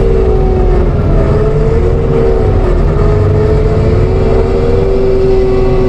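ASV RT-120F compact track loader running a TMC Cancela forestry mulcher: the diesel engine at steady high revs under a strong whine from the spinning mulcher head, the whine wavering slightly in pitch as it works through brush.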